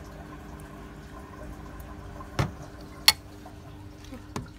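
A steady background hum with a faint watery trickle, broken by three sharp knocks, the loudest about three seconds in.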